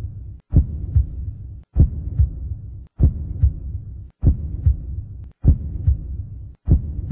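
Heartbeat sound effect: a low double thump, lub-dub, repeating about every 1.2 seconds, with a low hum between the beats and a brief gap before each beat.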